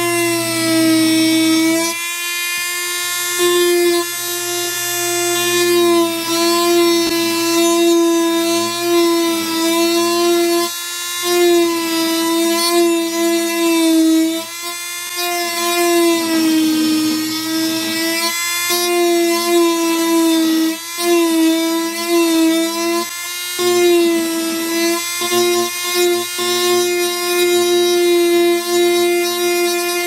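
High-speed handheld rotary tool whining steadily as its cone-shaped bit grinds the edge of a white guitar saddle, shaping a slope. The pitch wavers and dips now and then, with short drops in level.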